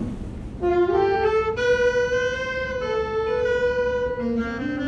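A solo wind instrument playing a slow melody of long held notes, starting just under a second in.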